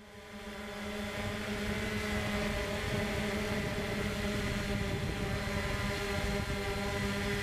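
A small quadcopter drone's motors and propellers hum steadily in flight, heard from the drone's own camera. The hum rises in level over the first second or so, then holds one steady pitch.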